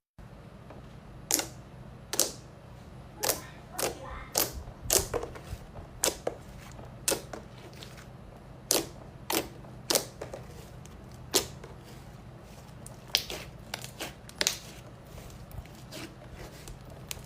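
Slime being pressed and played with, making sharp, irregular popping clicks, roughly one or two a second, over a steady low hum.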